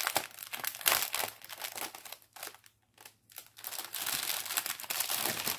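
Small plastic sachets of round diamond-painting drills crinkling and rustling as they are handled, with a short quiet pause a little past the middle.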